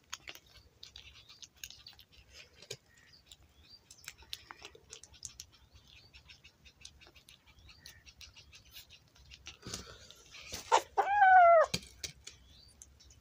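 A kitten chewing on a dead rat, with many faint quick ticks of biting and crunching. Small birds chirp now and then in the background. About eleven seconds in comes one loud, falling meow, lasting under a second.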